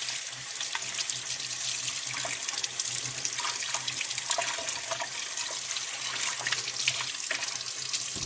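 Tap water running steadily into a sink, splashing over a black radish being scrubbed clean under the stream.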